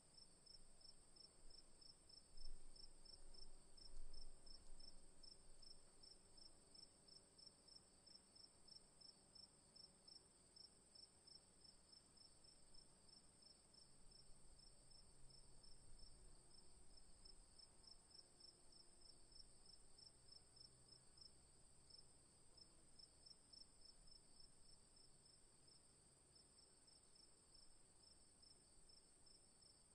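Faint insects chirping: a steady high trill with an evenly pulsing chirp beneath it. A couple of low bumps come a few seconds in.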